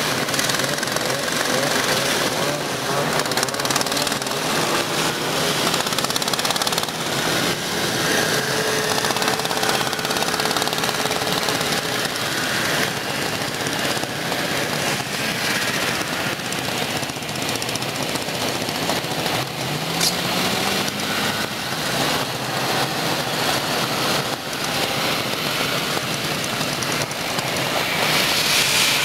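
Vintage two-stroke snowmobile engines running as sleds pass one after another, a fast uneven pulsing with engine pitch rising briefly as one revs about two-thirds of the way in.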